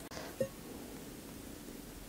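Quiet room tone with a steady faint hiss, broken by a single soft, low thud about half a second in.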